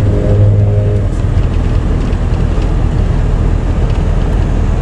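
Engine and road noise heard inside a moving pickup truck's cab: a steady low rumble with tyre noise, and a stronger low engine hum for about the first second.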